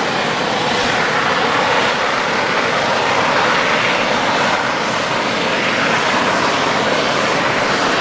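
Steady rushing noise of wind blowing past an open ski chairlift, loud and unbroken.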